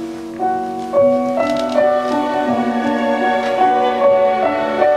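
Instrumental music: a slow melody of held notes, each changing after about half a second.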